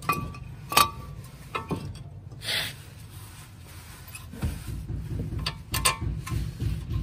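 Metal car parts clinking and knocking as front hub and brake components are handled and fitted, with a short scraping noise about two and a half seconds in. From about four and a half seconds in, a fast, low, even rattle sets in.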